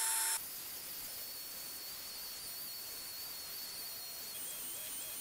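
X-Carve CNC router spindle whining as it cuts aluminium sheet, stopping abruptly less than half a second in. After it there is only a faint hiss with thin, wavering high tones.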